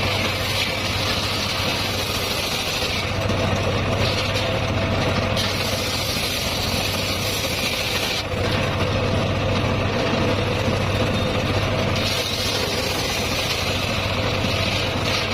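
Homemade circular sawmill running steadily with a low mechanical hum, while a higher hiss from the saw comes and goes in stretches of a few seconds.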